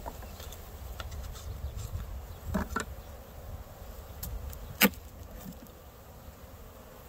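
Honeybees buzzing in an opened package, with a few knocks as the wooden package box is handled. Two knocks come close together a little past the middle, and the sharpest comes about five seconds in.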